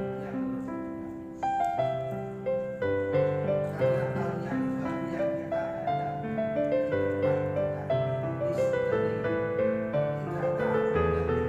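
Background music: a slow piano melody over sustained bass notes.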